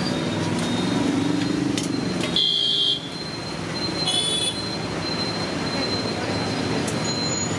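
Busy street traffic with vehicles running past steadily. Short vehicle horn toots sound about two and a half seconds in and again about four seconds in.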